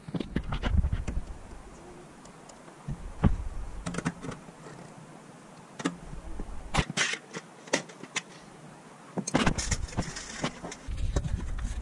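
Pressed sheet-metal backlight panel and chassis of an LED TV being handled: scattered light clicks, knocks and rattles of thin metal, with low rumbling handling noise in between.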